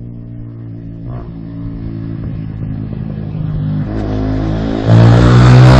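Yamaha WR125R's single-cylinder four-stroke engine through a MIVV full exhaust system with the dB killer taken out, the bike riding toward the microphone. The engine note grows steadily louder and jumps sharply in level near the end as the bike comes close.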